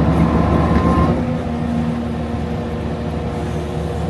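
Skid steer engine running steadily with a high whine that stops about a second in, after which the engine settles slightly quieter with a lower steady hum.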